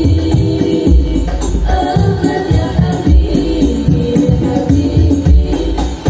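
Music with a heavy bass beat played loud through a home sound system driven by a 15-inch Ashley Orange 155 subwoofer. The sound is distorted because the phone's internal mic overloads at this volume.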